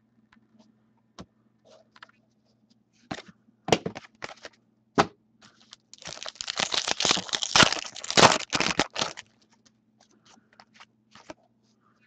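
Hockey trading-card pack wrapper being torn open and crinkled by hand. A few sharp snaps and rustles come first, then about three seconds of dense crackling as the wrapper tears, trailing off into light ticks of cards being handled.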